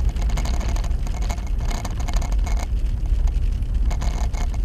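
Steady low rumble of a vehicle driving, engine and tyres on a snow-covered road, picked up inside the cab, with a fainter higher hiss coming and going.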